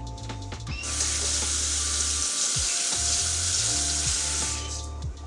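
Kitchen tap running for about four seconds, turned on about a second in and off near the end, over quiet background music.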